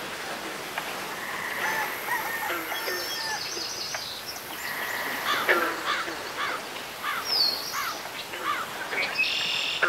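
Bird calls over a noisy outdoor ambience, with a run of short repeated calls about halfway through and a harsh buzzy call near the end.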